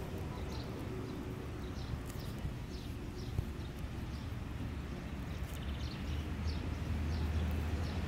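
Sparrows chirping: short high chirps every half second or so, with a quick buzzy chatter about three and a half seconds in. A steady low rumble runs underneath and grows a little louder near the end.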